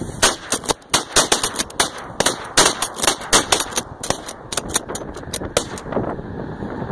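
Volley of shotgun blasts from several hunters firing at once into a flushing flock of snow geese, sharp overlapping reports several a second, thinning out near the end.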